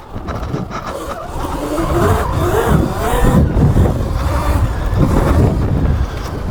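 Sur Ron electric dirt bike riding under a 15 kW BAC4000 controller. The motor whine rises in pitch about a second and a half in as it accelerates, then rises and falls with the throttle, over a low rumble of chain, tyres and wind.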